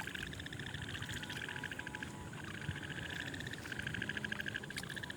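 Night chorus of frogs: rapid pulsed trills in bursts of about a second, repeating with short breaks, over a faint low background noise.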